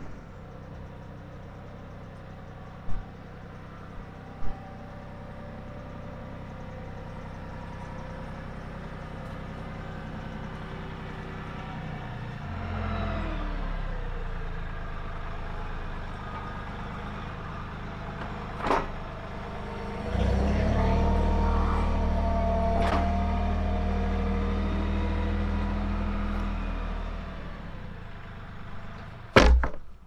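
Compact tractor engine running steadily, growing louder twice as it works harder, with a few sharp knocks and one loud knock near the end.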